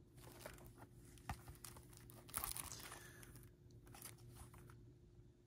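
Faint crinkling of shrink-wrapped plastic CD jewel cases being handled, with a few light clicks of the cases; the loudest rustle comes about two and a half seconds in.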